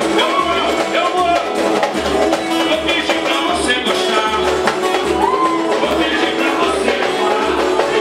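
A band playing an upbeat song with a lead singer over a steady, even bass beat.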